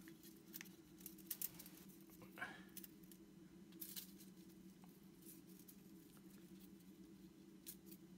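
Faint handling noises: a few soft clicks and light rustles as camera-mount shims and their clear plastic packet are handled, over a steady low hum.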